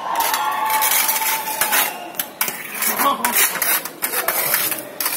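Steel hand trowels scraping and clinking against a metal tray as a dry sand, cement and bio-ash mortar mix is turned over, in irregular strokes.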